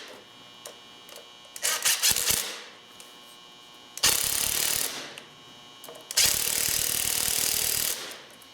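Ratchet wrench with an 11 mm socket tightening the nuts on wire-rope clamps on a winch cable: a few clicks about two seconds in, then two longer spells of rapid ratcheting, one about four seconds in and a longer one near the end.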